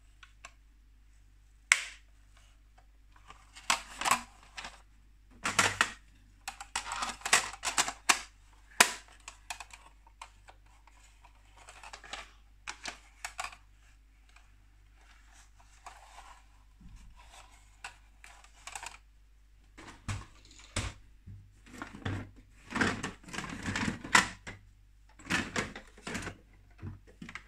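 Hard plastic Playmobil toy vehicle parts being handled and fitted together: irregular clicks, taps and rattles of plastic on plastic, coming in clusters with short quiet gaps.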